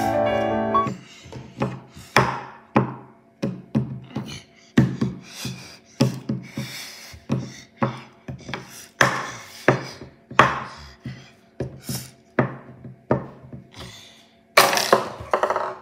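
Piano music ending about a second in, then a long run of irregular sharp knocks and taps on a hard surface, two or three a second, with a louder cluster near the end.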